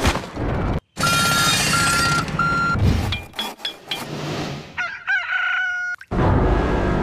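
Cartoon soundtrack with a rooster crowing about five seconds in, a curving call that ends on a held note, after a run of short tones and clicks.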